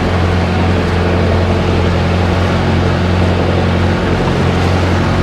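Engine of a motorized bangka, a Filipino outrigger canoe, running at a steady pitch while the boat cruises, with a steady rush of water and wind over it.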